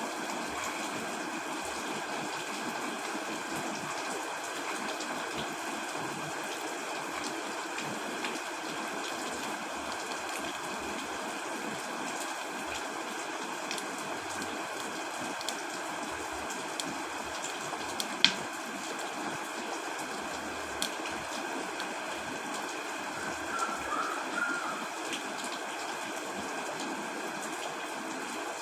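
Steady heavy rain falling, an even constant hiss with no thunder. A single sharp tick stands out about two-thirds of the way through.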